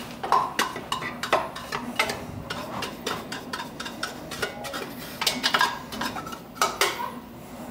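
A brush scrubbing and knocking inside the stainless-steel roast chamber of a Kaleido drum coffee roaster, sweeping out chaff and roasting buildup: irregular scrapes and sharp metallic clicks.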